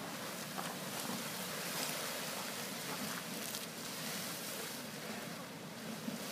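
Grotto Geyser erupting: a steady rush of splashing water and hissing steam.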